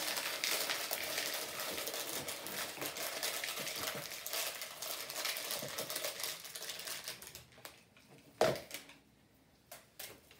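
Dry crackers and cereal being crushed and crumbled by hand into a plastic bowl: a dense crackling and rustling with many small clicks, which dies away after about seven seconds. Then a few scattered clicks and one short, louder sound about eight seconds in.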